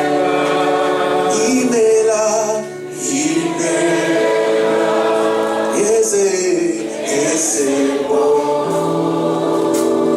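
Congregational gospel singing: a choir of voices holding long sung notes over instrumental accompaniment.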